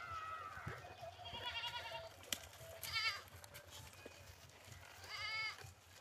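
Goats bleating: three wavering bleats, about a second and a half in, at three seconds, and near the end, with a fainter call at the start. A single sharp click comes between the first two bleats.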